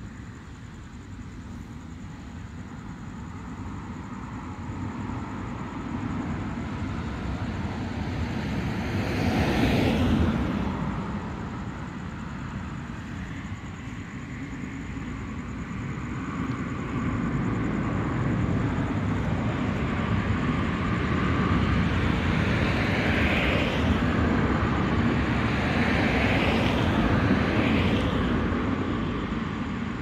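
Cars passing on a road: a rising and fading rush of tyre and engine noise peaking about ten seconds in, then a longer spell of passing traffic through the second half.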